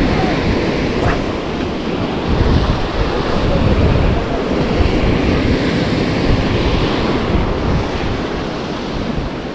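Ocean surf breaking and washing against the shore, a steady heavy rumble, with wind buffeting the microphone.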